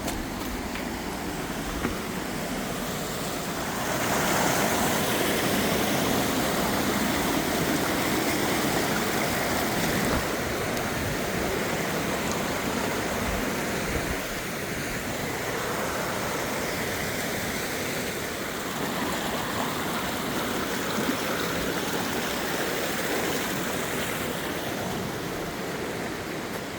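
Rushing water, a steady noise that gets louder about four seconds in.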